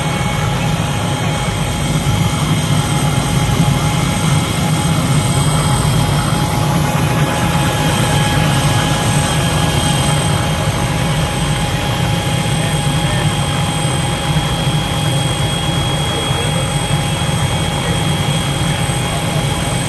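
Small two-bladed helicopter running on the ground with its rotor turning: a steady, even engine and rotor drone with a thin high whine over it.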